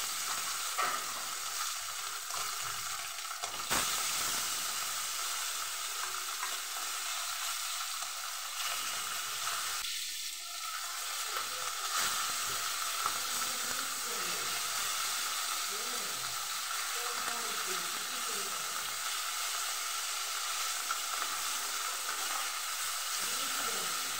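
Fish pieces sizzling steadily as they fry in hot oil in a kadai, with a wooden spatula scraping and turning them and knocking against the pan a few times.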